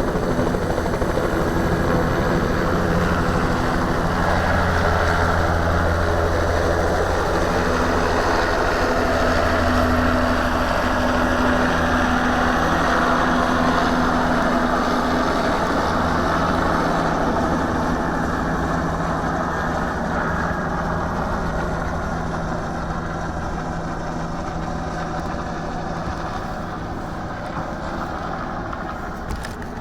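Bell 206B III helicopter's turbine engine running steadily, with a steady low hum. It grows gradually quieter over the last ten seconds or so.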